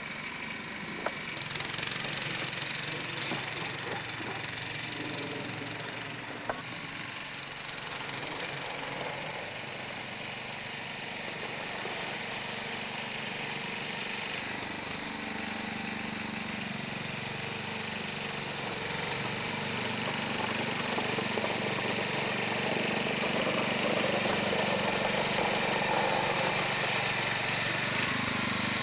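Sears Suburban 12 garden tractor's 12-horsepower engine running steadily while the tractor pushes snow with its front plow blade, growing louder through the second half as it comes closer. A sharp click about a second in and another about six seconds in.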